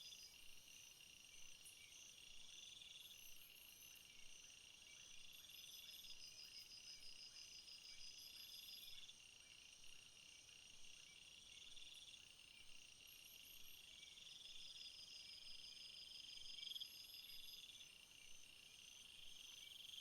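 Faint chorus of crickets and other meadow insects: several high-pitched trills overlap, with one chirring phrase about a second long repeating every two to three seconds over a steady high buzz.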